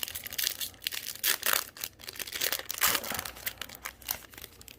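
Foil trading-card booster pack crinkling and tearing as it is handled and ripped open by hand: a quick run of irregular crackles that dies away near the end.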